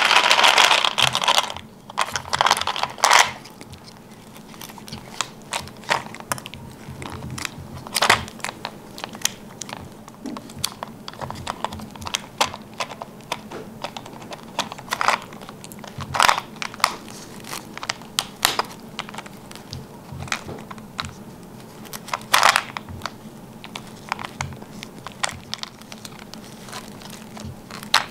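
Young monkey handling and gnawing a yellow plastic toy plane filled with candy balls: irregular clicks, taps and crinkly rustles of plastic, with a louder rustling burst in the first second or so.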